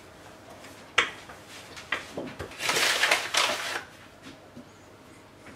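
Strudel dough and a wooden rolling pin being handled on a floured worktop: a sharp knock about a second in, then about a second of rough scraping, rustling noise near the middle.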